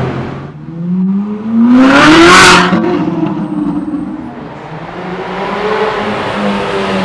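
Supercar engine revving: the pitch climbs quickly to a loud peak about two seconds in, cuts off briefly, then settles to a steadier, lower engine note.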